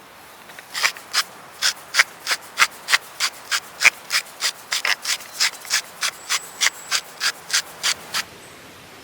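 A rapid, even series of rubbing strokes by hand, about three a second, starting just under a second in and stopping a little after eight seconds.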